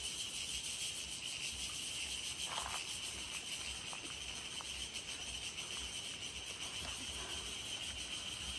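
Steady high-pitched drone of forest insects, one unchanging pitch throughout, with a faint low rumble underneath.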